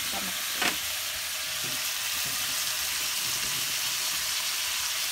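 Squid pieces sizzling steadily as they fry in butter in a pan, stirred with a spatula, with one knock of the spatula against the pan just under a second in.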